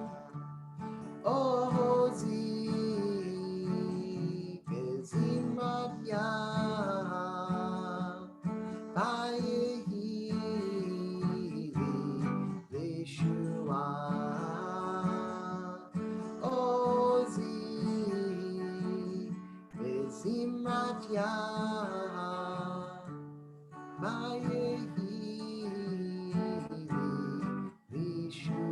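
Acoustic guitar strummed under a man singing a slow, repeated chant melody in held phrases, with short pauses between phrases.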